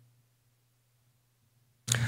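Near silence: the sound drops out almost completely. Near the end it cuts back in with a click and a low steady hum.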